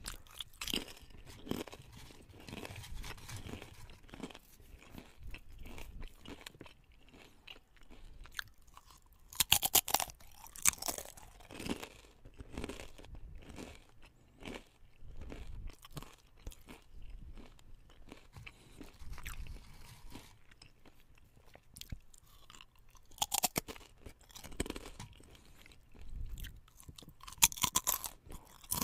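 Potato chips being crunched and chewed: a run of crisp crackles, with louder bursts of crunching about ten seconds in and twice near the end.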